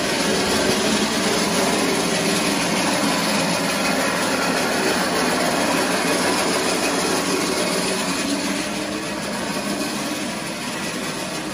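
A small engine or machine running steadily, easing off a little near the end.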